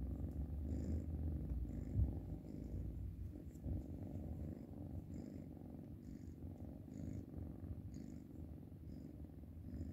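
Black Oriental kitten purring steadily while being stroked under the chin, the purr swelling with its breaths about once a second. A brief low bump about two seconds in.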